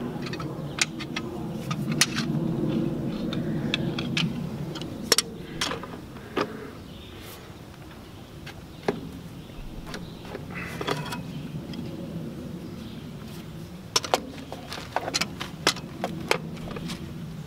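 Metal hand tools clinking and knocking against fittings on a tractor's diesel engine as pliers and wrenches work loose the fuel line, in scattered sharp clicks, with a low steady drone in the background.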